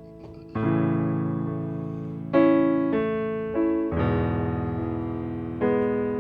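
Piano or keyboard playing slow, sustained chords, a new chord struck every second or so and each one fading away.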